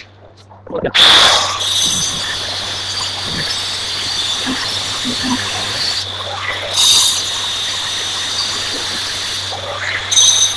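Handheld electric angle grinder starting about a second in and running steadily as it grinds the stone countertop's edge, easing off briefly twice.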